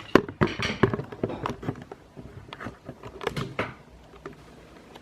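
A string of clicks, knocks and rustles, like objects or the camera being handled, over the first four seconds.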